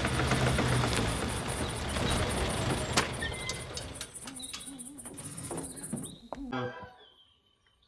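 1948 Morris Commercial LC3 truck's engine running as the truck pulls up and stops, dying away about four seconds in, with a fast high chirping alongside. A sharp click about three seconds in, then a few light knocks before it goes quiet.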